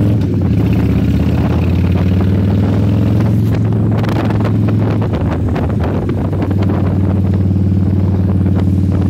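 Cruiser motorcycle engine running steadily while riding, with wind buffeting the microphone. The steady engine note blurs for a couple of seconds around the middle, amid a flurry of wind thumps, then settles again.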